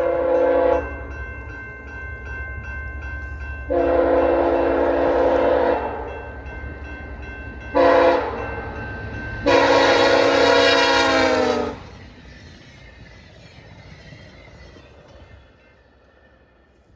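Passing train sounding its multi-tone horn: a long blast ending, then long, short, long, the last blast's pitch falling as it goes by. A low rumble of the train runs under the horn and fades away after the last blast.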